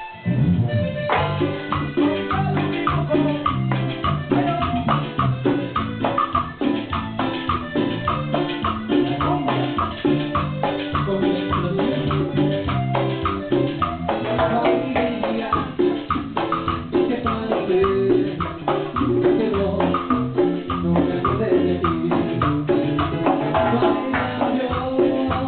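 Live band rehearsing a Latin dance tune, with drums and shaker-type percussion under the melody. The band comes back in full about a second in, after a brief drop.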